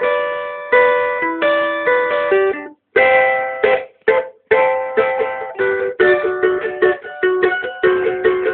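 Cavaquinho playing a quick plucked and strummed instrumental intro in pagode style, with two brief breaks about three and four seconds in.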